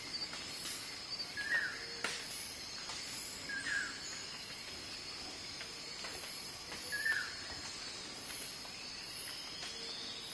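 Forest dawn ambience: a steady high insect drone with a faster pulsing insect trill above it, and a short chirping call repeated three times, about two to three seconds apart.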